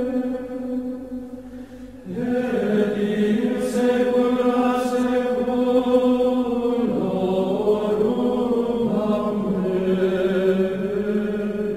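Slow chant-like background music of long held notes. It dips just before two seconds, a new note enters at about two seconds, and the pitch shifts again near seven seconds.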